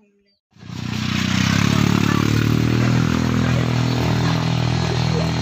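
An engine running close by, starting abruptly about half a second in and then holding a steady pitch.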